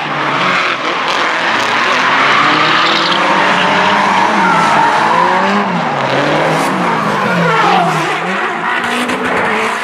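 Several drift cars sliding in tandem: their engines rev up and down as the drivers work the throttle, over continuous tyre squeal from the wheelspin. The engine pitches rise and fall several times, most clearly in the second half.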